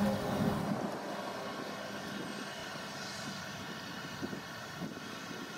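Claas Lexion 770 TT combine harvester running steadily while harvesting, a low engine hum with a whine of many tones. A louder, closer sound drops away about half a second in.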